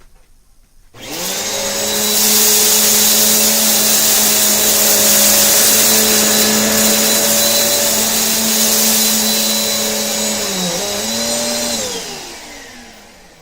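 Eureka vacuum cleaner switched on and run over rice on carpet: its motor starts about a second in, whines steadily with a hiss of rushing air, then is switched off near the end and winds down with a falling pitch.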